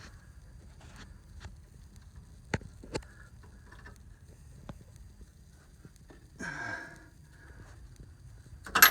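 Faint clicks and light knocks of tools and parts being handled, with a short scraping rustle about six and a half seconds in and a quick run of louder knocks right at the end.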